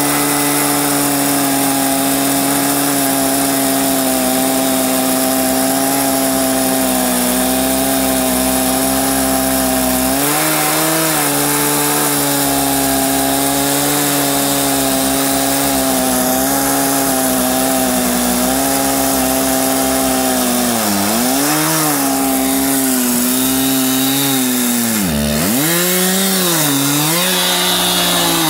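Two-stroke chainsaw in an Alaskan chainsaw mill running at high speed while ripping a log lengthwise. The engine note holds steady at first, then drops and recovers several times near the end as the saw bogs under load.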